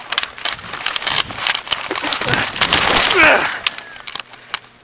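Close, loud rustling and crackling with many irregular sharp clicks, densest between about two and three and a half seconds in, with a brief gliding voice-like sound just after three seconds.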